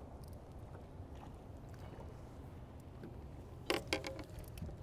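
Low steady wind rumble, with a short clatter of clicks and knocks about four seconds in as fishing gear is handled in the boat.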